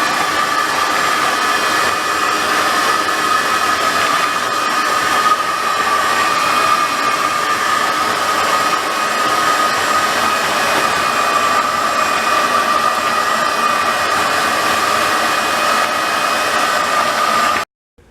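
Shop vac running steadily with a constant high whine as it sucks up floodwater; it cuts off suddenly near the end.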